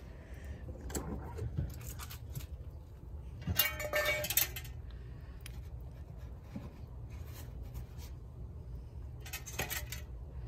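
Metal clattering and clinking from the wire rack and aluminium pan inside an electric smoker as the corn on the cob is handled, loudest about three and a half to four and a half seconds in, with another clatter near the end and scattered lighter clicks.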